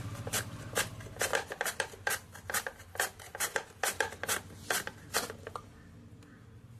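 Hard cassava (tapioca) root being sliced into thin chips on a hand-held metal chip slicer over a wooden board. It makes quick rasping strokes, about three a second, which stop a little past five seconds in.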